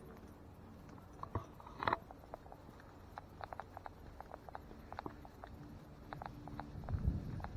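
Footsteps walking along a dirt trail, with irregular crisp crunches and crackles underfoot. A louder crunch comes about two seconds in, and a low rumble rises near the end.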